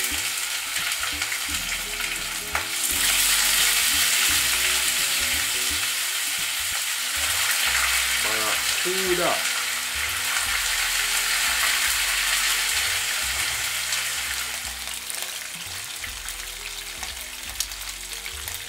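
Barracuda steaks sizzling in hot oil in a frying pan as the pieces are laid in. The sizzle swells about three seconds in and eases off toward the end.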